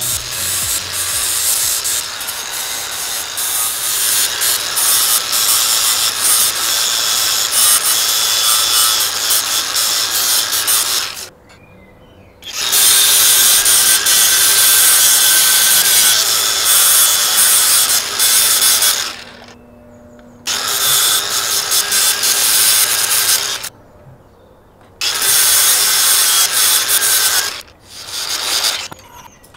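Handheld angle grinder with an abrasive disc grinding an L-shaped steel rod held in a vise. It runs in four long stretches, stopping for about a second three times in between.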